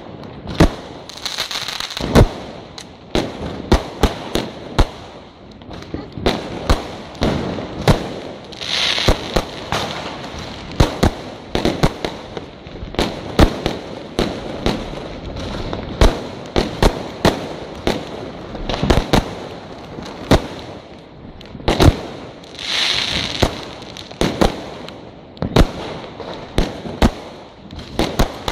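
Fireworks and firecrackers going off overhead: dozens of sharp bangs and cracks at irregular intervals, several a second at times. Short spells of hissing crackle come about 9 and 23 seconds in.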